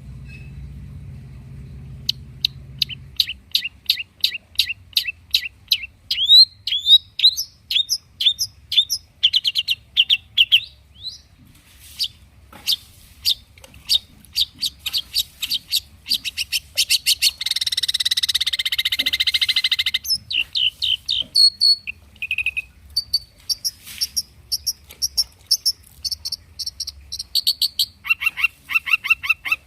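Long-tailed shrike (cendet) singing a fast, varied song of rapid runs of short, sharp chirps and whistled notes, with mimicked calls of other birds worked in. About seventeen seconds in comes a harsh, buzzy chatter lasting a couple of seconds.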